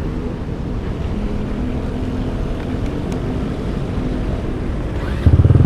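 Rusi RFI 175 scooter engine running through an MTRT aftermarket exhaust pipe, a steady low rumble; about five seconds in it becomes suddenly much louder, a deep, even pulsing exhaust note.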